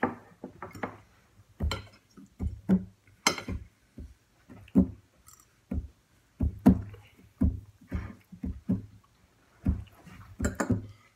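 Metal forks knocking, clinking and scraping against plates, with occasional thuds on the table while eating, in an irregular string of short sharp sounds about one or two a second.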